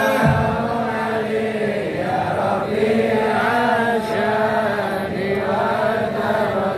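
Men chanting devotional verses together in a slow, drawn-out melody: sholawat sung in chorus at a Maulid gathering.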